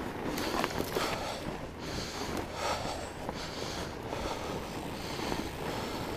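A fat bike rolling over a snowy trail with a steady rumble and crunch, and the rider's heavy breathing in and out about once a second close to the microphone.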